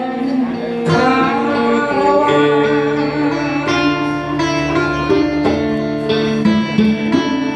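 Live music: a guitar plays a melodic instrumental passage over a sustained musical accompaniment, with no singing.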